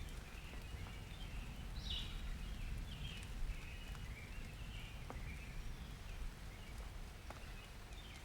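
Low rumble of summer thunder dying away under light rain, with birds chirping in short falling notes and a few sharp drips.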